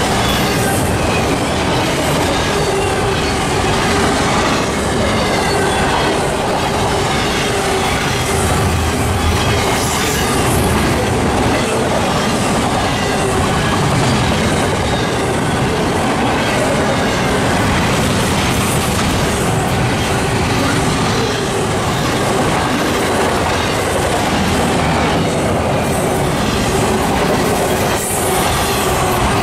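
Double-stack container cars of a freight train rolling past close by: steady, loud noise of steel wheels running on the rails, with a faint steady whine over it.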